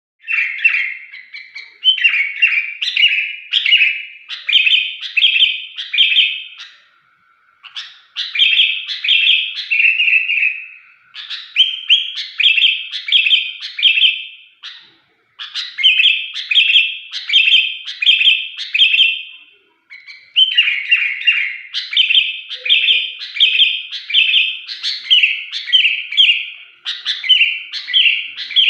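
Sooty-headed bulbul singing in a shrill voice: runs of short, loud chirping notes, about two a second, repeated in bouts of a few seconds with brief pauses between them.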